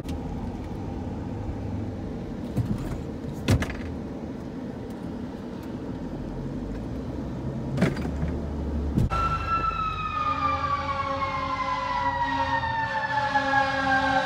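Road and wind noise inside a moving car. About nine seconds in, a fire engine's siren starts, its wail falling slowly in pitch over several seconds with a steadier lower tone beneath.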